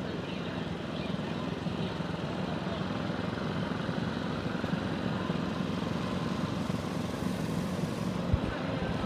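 Small engines of several children's mini go-karts buzzing steadily as they circle the track, with a brief thump about eight seconds in.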